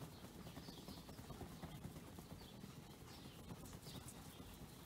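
Faint handling sounds with soft irregular clicks as a small bottle of ceramic coating is shaken by a gloved hand.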